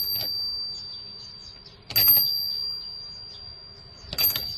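Small brass bell on a wooden dog-head pet doorbell, rung by pressing the dog's nose. It gives a clear, high ringing tone that fades slowly. The ring from a press just before the start is still fading, and it is rung again about two seconds in and near the end.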